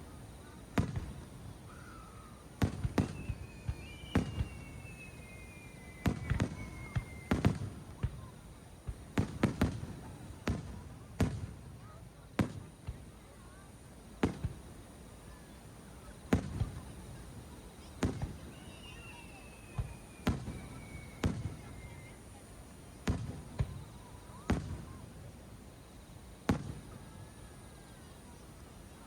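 Fireworks display: aerial shells bursting in irregular volleys of sharp booms, some in quick clusters. Twice a faint whistle falls slowly in pitch over several seconds.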